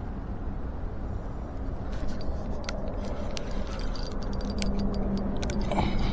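Fishing reel being cranked to bring in a hooked fish: sharp, irregular clicks start about two seconds in, over a steady low rumble of wind on the microphone.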